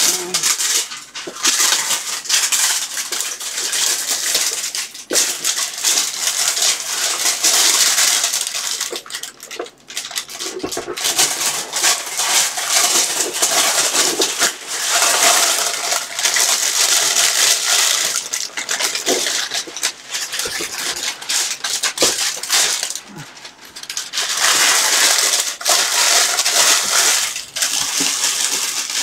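Plastic cover crinkling and rustling loudly as it is cut and pulled off a plastic drawer cabinet, on and off with short pauses.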